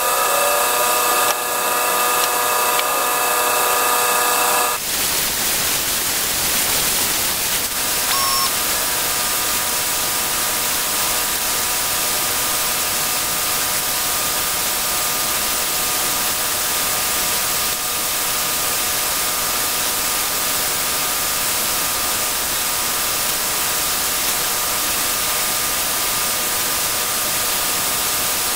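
A shop tool running steadily, giving a continuous hiss with a steady whine; about five seconds in the hiss grows fuller.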